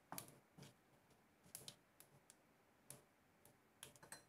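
Cumin seeds and whole spices crackling in hot oil on low heat: faint, scattered pops and ticks at irregular intervals.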